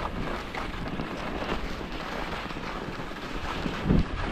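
Skis scraping and chattering over firm, tracked-up snow, with wind rushing over the microphone. A low thump comes about four seconds in.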